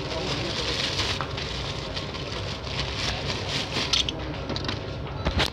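Clear plastic bag crinkling and rustling as coiled welding cables with their electrode holder and ground clamp are handled and pulled out of it, with a sharp knock near the end.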